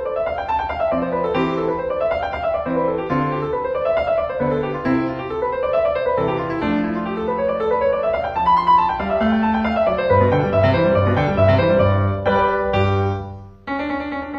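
Background piano music: flowing runs of notes that rise and fall over and over, breaking off briefly and starting again about a second before the end.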